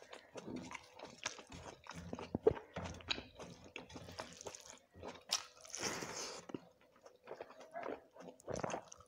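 Close-miked chewing and crunching of a mouthful of rice eaten by hand, with many small crackles and clicks. Fingers mix and squish rice on a steel plate in between bites.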